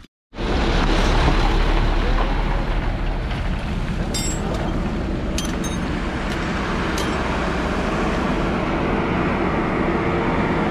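A motor vehicle running, with a steady loud low rumble and road noise and a few sharp clicks in the middle.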